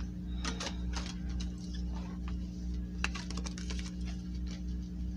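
Pokémon trading cards being handled and set down: a scatter of light clicks and taps, bunched about half a second in and again around three seconds in, over a steady low hum.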